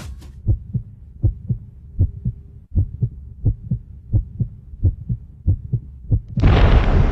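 Heartbeat sound effect: steady, evenly repeating low thumps in lub-dub pairs. A short loud rush of noise cuts in near the end.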